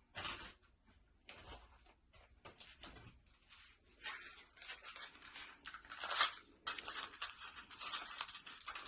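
Rustling and crinkling of packaging while small hardware is handled, in irregular bursts that turn into a denser run near the end.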